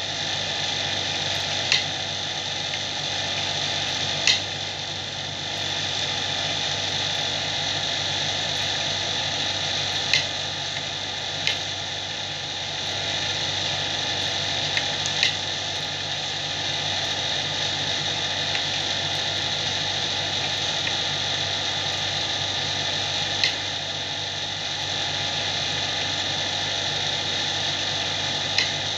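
Steady whirring background noise with a faint hum throughout, broken every few seconds by a short sharp click from the hand-knitting, about seven clicks in all.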